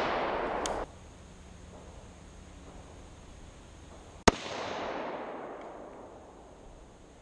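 Rifle shot from a 7.62x39 SKS, heard from beside the target: a single sharp crack about four seconds in as the round strikes a marble-tiled steel plate, followed by a long echo rolling away through the woods. At the start, the echo of an earlier shot is still dying away.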